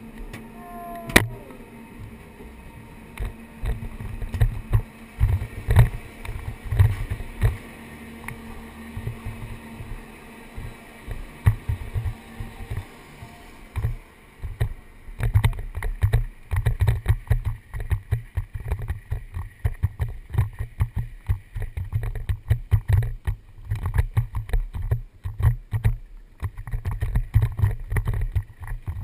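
Helmet-camera microphone picking up the low thuds and rumble of a downhill mountain bike on the move, with wind on the microphone. During the first half there is a faint steady hum with scattered knocks and one sharp click about a second in. From about halfway the thudding turns dense and continuous as the tyres run over a gravel dirt trail.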